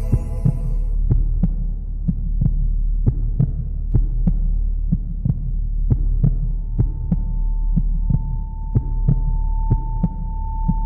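Instrumental break of a slowed-and-reverb song: a deep, steady bass drone under a regular beat of short percussive hits. A steady high tone comes in about two-thirds of the way through.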